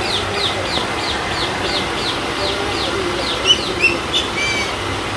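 A bird gives a quick run of short falling chirps, about three a second, then a few different calls near the end, over the steady splashing of a small garden pond waterfall.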